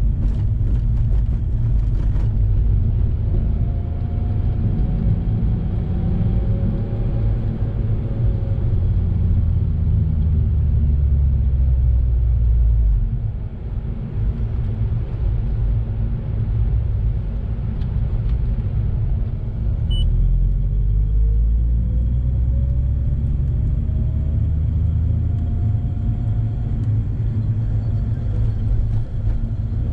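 Mazda RX-8's two-rotor rotary engine and road noise, heard inside the cabin as a steady low rumble. The engine note rises twice as the car speeds up, about three seconds in and again a little past twenty seconds.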